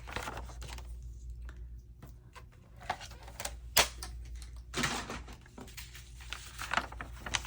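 Paper and craft tools handled on a work table: scattered sharp clicks and taps, one louder snap a little before the middle, and a short rustle of paper about two-thirds through.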